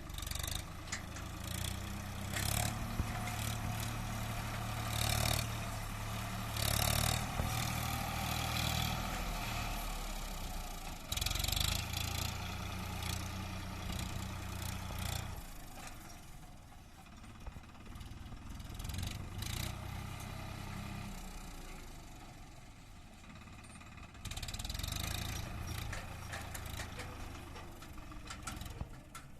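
Swaraj 963 FE tractor's diesel engine running, louder and heavier for stretches, easing off about halfway through and picking up again near the end. Several short clattering noises come over it.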